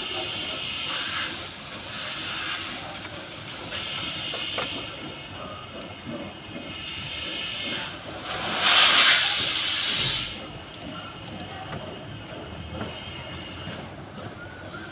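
Compressed air hissing out in several bursts, the loudest and longest about two-thirds of the way through, as from an air blow gun.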